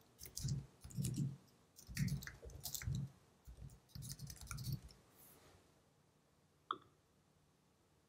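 Computer keyboard keystrokes in quick clustered bursts while login details are typed, stopping about five seconds in. A single sharper click follows near the end.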